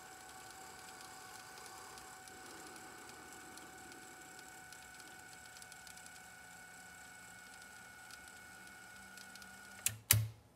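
Sony TC-FX707R cassette deck fast-forwarding a test tape: a faint steady whir with a thin whine and fine ticking from the transport. About ten seconds in, two sharp loud clicks as the winding stops.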